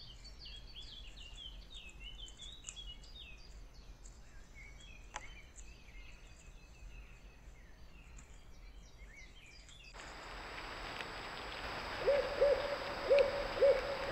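Small birds chirping and twittering in quick, high calls for the first ten seconds. Then, over a steady hiss, a barred owl starts calling with a run of short, rhythmic hoots, about four of them, the loudest sound here.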